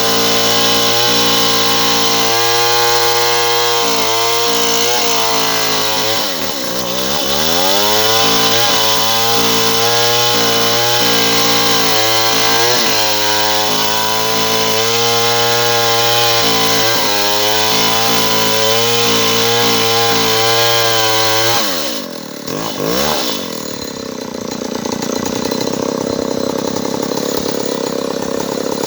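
Stihl 070 two-stroke chainsaw running at high, steady revs while cutting wood. Its revs dip and recover about six seconds in. About 22 seconds in they drop sharply and swing back up, and the saw runs more quietly for the rest.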